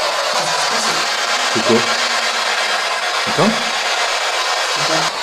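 A loud, steady hiss with a few brief, low voice-like sounds, one near the start of the second second, one near the middle and one near the end.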